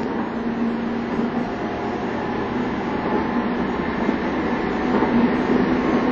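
Cabin running noise of a Tokyu 5000 series electric train car under way: a steady rumble of wheels and running gear with a faint hum, growing slightly louder about five seconds in.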